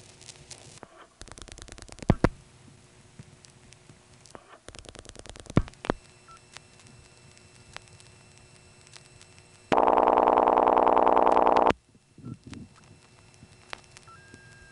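Telephone line of a 1977 XY switching office: two bursts of rapid clicking with a sharp click in each as dialed digits step the switches, then a loud, buzzy ringback tone for about two seconds on a call to a vacant number.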